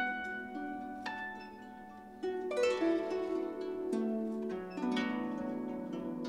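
Konghou, the Chinese harp, being played: plucked notes ringing on, then a louder flurry of quick plucks sweeping across the strings about two seconds in, and another near the end.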